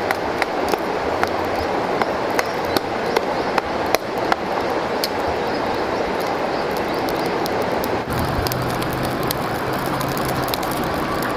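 Small wood campfire crackling, with sharp pops and snaps of burning twigs scattered over a steady rushing noise.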